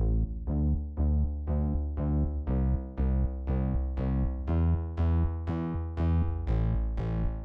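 Background music: electronic keyboard or synthesizer notes repeating at a steady beat of about two a second.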